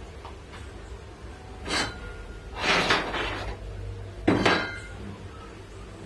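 A metal tube clanking and scraping against metal as it is worked at the bench: a sharp clank about two seconds in, a longer rattling scrape about a second later, and a last clank near the end that rings briefly.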